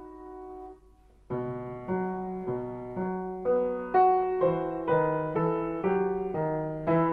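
Solo piano background music. A held chord fades out, and after a short break a new passage begins, with notes struck about twice a second.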